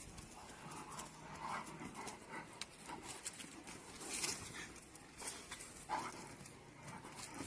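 A German Shepherd dog making small, soft vocal and breathing sounds, with a few short breathy bursts about four and six seconds in.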